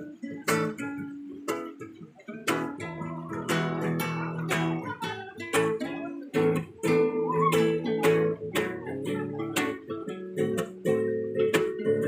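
Two acoustic guitars played together with no singing: short, sharp strummed chords land in a steady rhythm over ringing lower notes.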